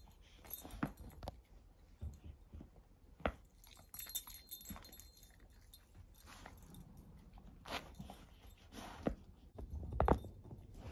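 A shepherd-mix dog chewing and tearing at a woven-canvas plush toy: irregular rasps, crunches and soft clicks, with a light jingle of collar tags now and then. A heavier thump near the end.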